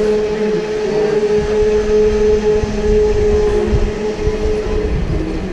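Electric go-kart motor whining steadily at speed, with tyre and chassis rumble underneath. The whine fades near the end.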